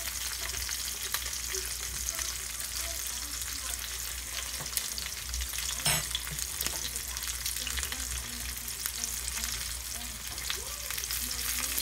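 Ribeye steak searing in avocado oil in a hot cast iron skillet: a steady sizzle full of small crackling pops, with one sharper crack about halfway through.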